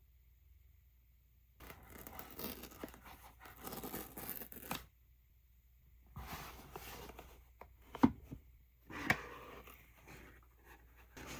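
Product packaging being torn open and handled, in two stretches of tearing and rustling, with two sharp knocks about eight and nine seconds in.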